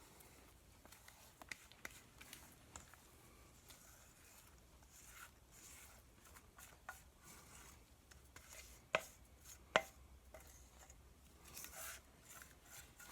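Faint scraping and light tapping of a paint spatula working cake batter into a mold, with two sharper knocks about nine and ten seconds in.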